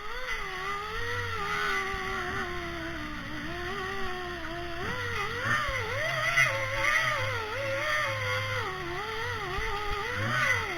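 A small high-speed motor starts abruptly and runs throughout with a whine that rises and dips irregularly.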